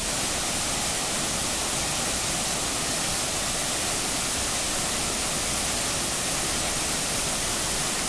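Waterfall falling into a rock pool: a steady, even rush of water.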